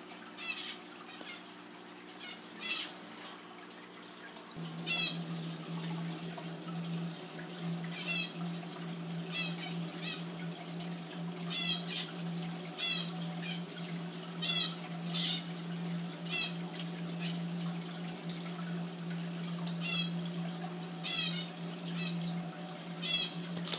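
Aquarium water trickling steadily. A low steady hum sets in about four seconds in, and short high chirps recur every second or so.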